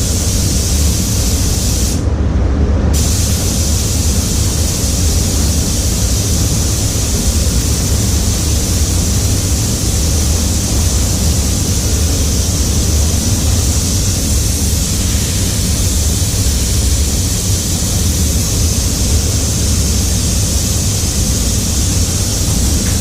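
Automotive paint spray gun hissing steadily over a constant low rumble. The spray cuts off for about a second, about two seconds in, then resumes.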